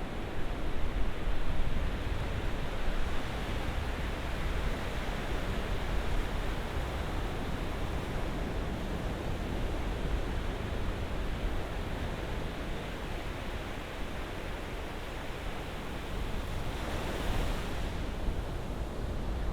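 Ocean surf washing continuously, a steady hiss of waves over a deep low rumble, slightly louder about a second in and with a brief brighter hiss near the end.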